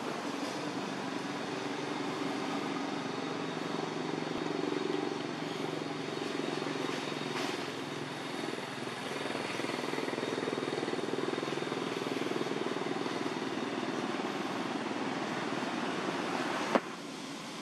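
A steady low engine drone under a constant outdoor background hiss. Near the end a single sharp click sounds, and after it everything is quieter.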